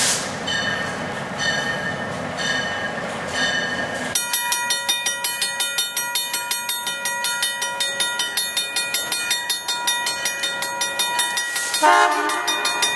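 Grade-crossing bell ringing steadily at about two to three strokes a second as a diesel locomotive approaches, with one short locomotive horn blast near the end.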